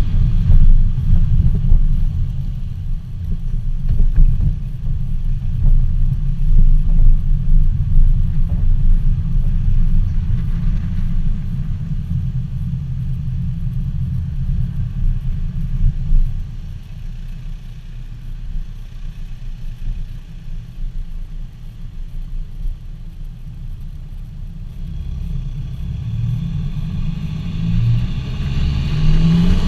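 Muffler- and DPF-deleted VW Golf Mk5 2.0 PD TDI four-cylinder diesel on a stage 2 map, driving with a deep, loud exhaust note. It pulls hard at first, eases off about halfway through, then builds again near the end.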